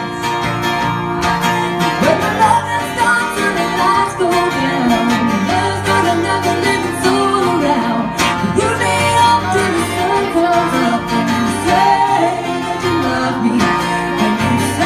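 Live music: a woman singing and playing guitar.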